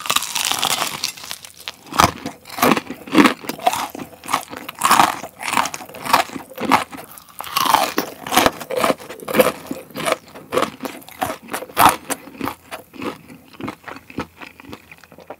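Close-up crunching and chewing of boneless fried chicken with a crispy cheese-flavoured coating, a loud bite at the start and then many sharp, irregular crunches several times a second.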